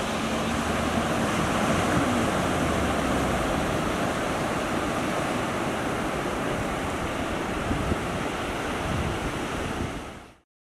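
Surf washing onto the beach with wind buffeting the microphone. An outboard motor is faintly heard under the surf in the first couple of seconds, its pitch sliding down. The sound fades out near the end.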